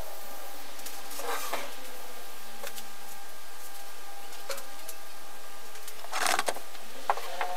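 A paint-soaked dish sponge rubbed over a pegboard, a few short scuffing strokes, the loudest about six seconds in, over a steady faint hum.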